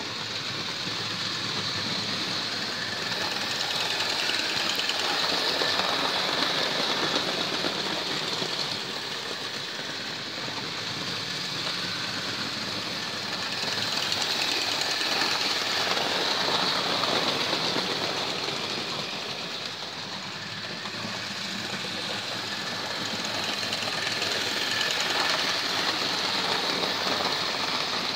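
Hornby OO-gauge model locomotives running on track, pulling a train of wagons: a steady electric-motor whirr with wheel clatter on the rails. The sound grows louder and fainter three times as the train circles past and away.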